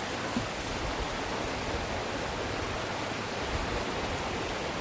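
Steady rushing of whitewater river rapids.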